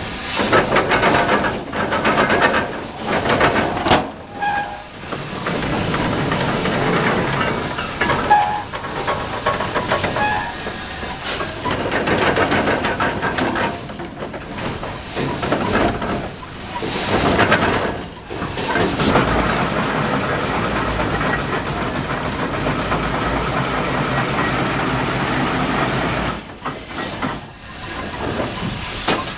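Steam shovel at work: a steady hiss of steam, with the engine's exhaust rising and falling in uneven surges.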